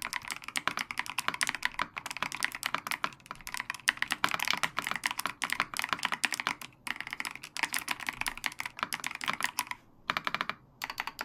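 Fast typing on a Magegee Air 75 mechanical keyboard with Durock Ice King switches and clear keycaps, keys struck with long fingernails that click on the caps. The typing breaks off briefly about seven seconds in and again near the end.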